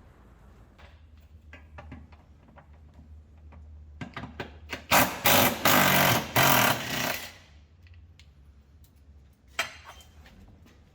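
A power wrench (impact wrench or air ratchet) hammering in a few short bursts, then a loud run of about two seconds with brief breaks, undoing exhaust mounting bolts. Light metal clicks of tool handling come before it, with a steady low hum underneath.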